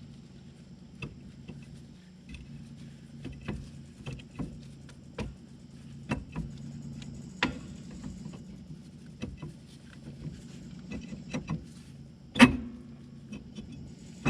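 Metal parts being handled at a car's rear wheel hub as lug nuts come off and the rotor is freed: scattered light clinks and taps, then one loud clank about two seconds before the end, over a steady low hum.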